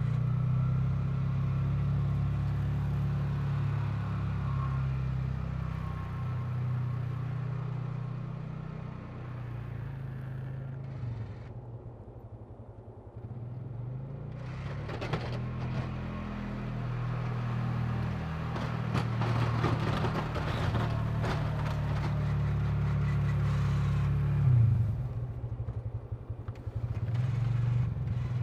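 Polaris Ranger 6x6 UTV engine running while it pushes snow with a plow blade. The engine drops back for a few seconds before the middle, then scraping and clattering from the blade go on for several seconds, with a single thump near the end.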